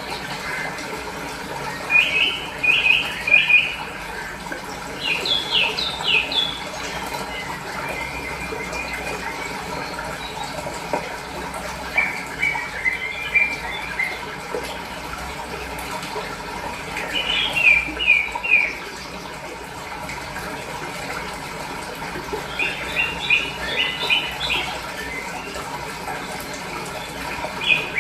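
Small birds chirping in short bursts of rapid notes, a burst every few seconds, over a steady rush of flowing fresh water.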